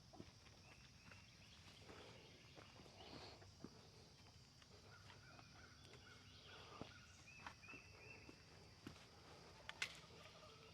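Faint outdoor ambience: a steady high insect-like hiss, scattered short bird chirps, and a few light clicks or footsteps, with one sharper click near the end.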